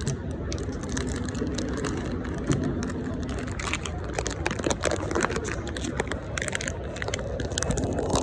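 A small cardboard blind box and its packaging being opened by one hand, giving irregular crinkles, scrapes and sharp clicks, most of them after the first few seconds. Under them runs steady background noise with a low hum.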